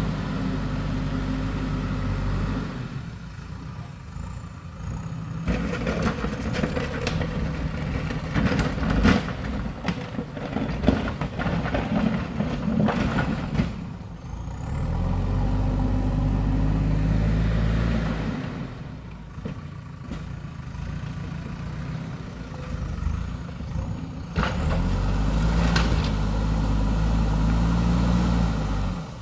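JCB backhoe loader's diesel engine working under load, rising to a strong, steady run several times and dropping back between. Between those runs there are long stretches of clattering and sharp knocks from the digging.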